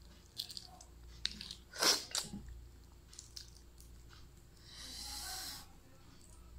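Close-up eating of a balut: crackling shell and crunching bites with chewing, the loudest crunch about two seconds in, then a hiss lasting about a second near the end.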